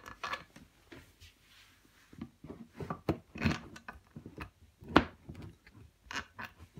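Steel hydraulic quick-coupler fittings being handled and fitted together by hand against a wooden bench. Scattered light metallic clicks and knocks, the sharpest about five seconds in.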